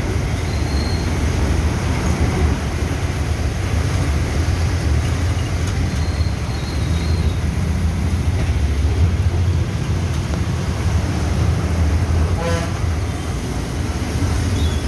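Steady road traffic noise with a low rumble, and a short vehicle horn toot about twelve and a half seconds in.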